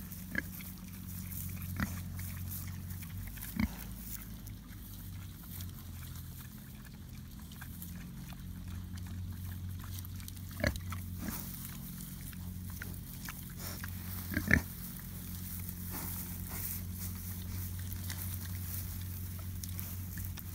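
Pigs eating chard, grunting and chewing, with a handful of short sharp sounds, the loudest about fourteen seconds in, over a steady low hum.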